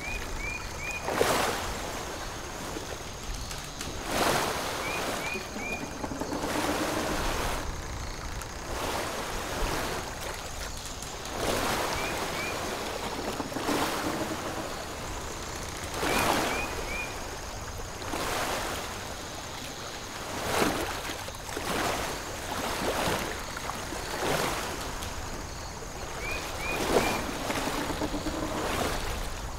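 Waves washing onto a beach, swelling and falling back every few seconds in a steady ocean ambience. Short high chirps in twos and threes come through at intervals.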